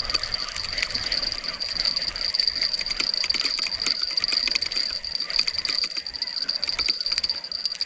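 Spinning reel being cranked to bring in a hooked fish, with many small irregular ticks. Behind it is a steady high-pitched insect drone.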